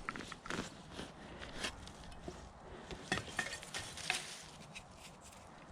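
Digging in soil by hand: a string of short, irregular scrapes and small clicks as dirt is worked loose around a metal-detector target.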